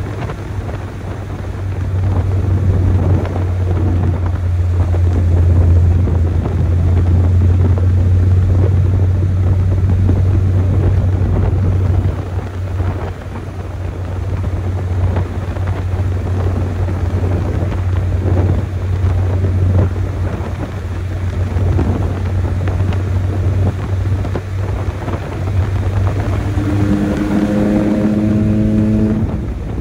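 Chevrolet S10 pickup's stock four-cylinder engine pulling hard, a steady low exhaust drone under load. Near the end the engine note climbs higher and louder, then falls away suddenly.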